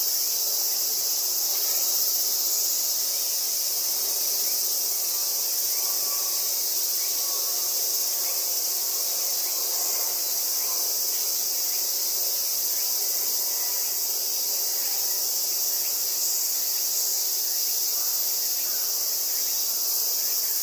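A dense, steady chorus of insects, a shrill high-pitched drone with no breaks.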